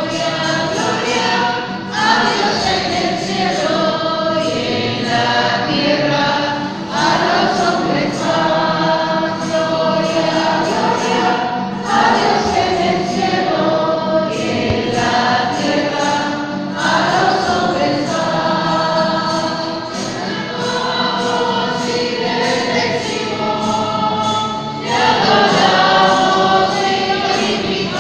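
A choir singing a slow hymn in long held phrases, each new phrase starting every few seconds.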